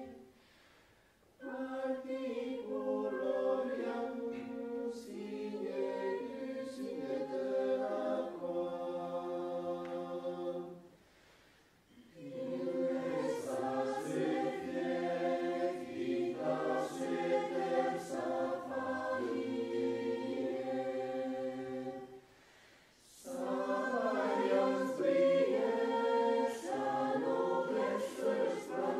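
Choir singing a song in F minor: three held, chordal phrases, each starting after a short pause.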